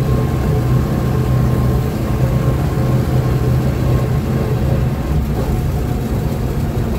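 GAZ-66 truck's V8 petrol engine running steadily while driving, heard from inside the cab as an even low drone.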